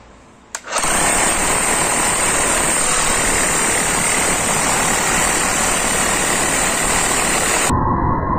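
Bosch GBH 11 DE electric demolition hammer switched on about half a second in and running under power, a loud, dense mechanical noise. It cuts off abruptly near the end.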